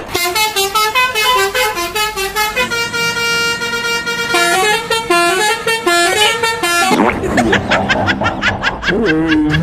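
Basuri-style telolet bus horn, a multi-trumpet musical horn, playing a tune of short stepped notes with a long held chord in the middle. About seven seconds in, music with gliding pitches and a quick beat takes over.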